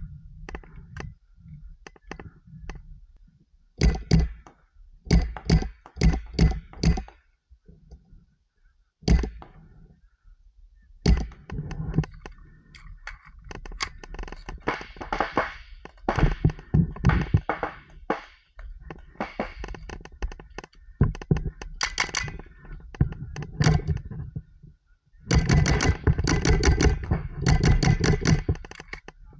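Paintball markers firing rapid volleys of shots in several bursts, heaviest near the end.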